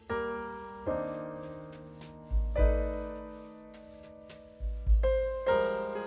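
Background piano music: slow chords struck one after another, each ringing and fading away, with deep bass notes under two of them.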